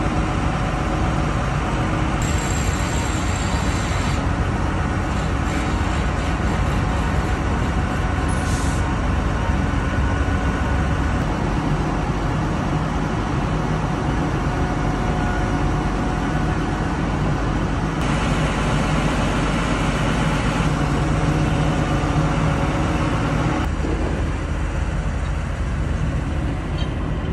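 Heavy diesel engine running steadily at constant speed, its sound shifting a few times, with a thin high whine for about two seconds near the start.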